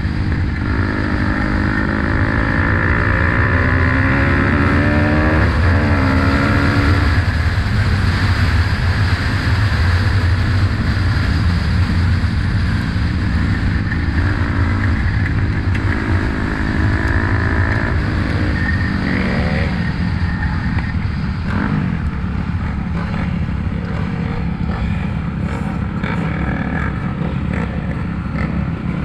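Dirt-track racing motorcycle engine heard from on the bike, rising and falling in pitch as the rider opens and closes the throttle around the track. In the last third it runs lower and steadier as the bike slows off the track, with scattered sharp clicks.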